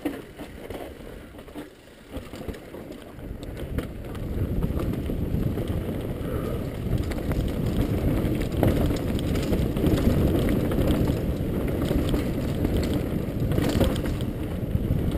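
Mountain bike descending a dirt singletrack: knobby tyres rolling over dirt and roots, with the bike rattling and knocking over the bumps. The noise grows louder about four seconds in as speed picks up.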